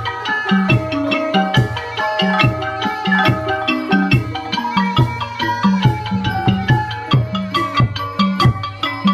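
Thai folk piphat ensemble playing: a quick melody of struck, pitched notes over steady drum strokes, with sharp metallic ticks on top.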